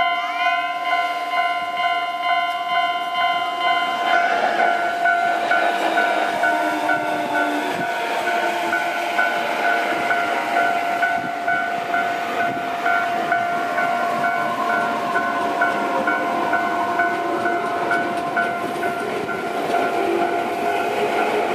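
Japanese level-crossing warning bell ringing with a steady, regularly repeating electronic chime. From about four seconds in, an electric commuter train passes over the crossing, its running noise on the rails mixing with tones that fall in pitch.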